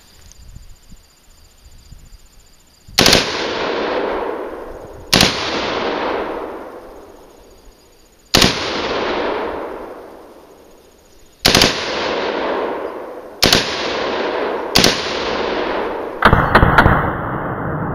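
M4-type carbine fired in single shots, six spaced one to three seconds apart, each followed by a long fading echo. Near the end comes a quick burst of several shots.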